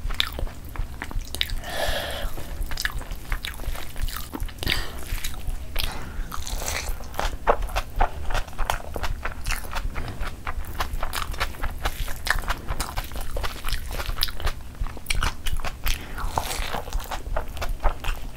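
Close-miked chewing of a full mouthful of chicken biryani rice and onion raita: a dense run of wet lip smacks and mouth clicks, with a few crunchier stretches.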